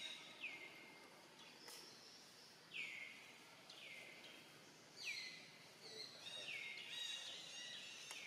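Faint bird calls: short notes sliding downward in pitch, repeated about once a second over a quiet outdoor hush, with more overlapping notes in the last second or two.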